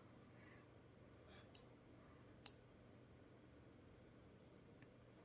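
A few sharp computer mouse clicks: two clear ones about a second apart, then a couple of fainter ones, over near silence.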